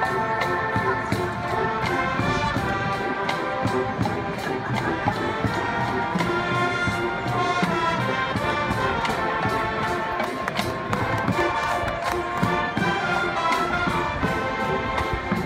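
Marching band playing a brass tune: trumpets, mellophones and sousaphones over a steady drumline beat.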